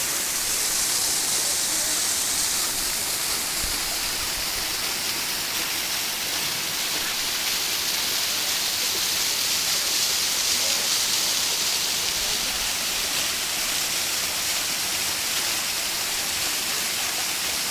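Waterfall: water falling and rushing in a steady, loud hiss.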